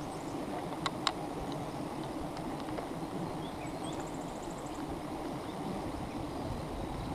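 A dense swarm of wild bees buzzing steadily around an exposed comb, with two sharp clicks about a second in.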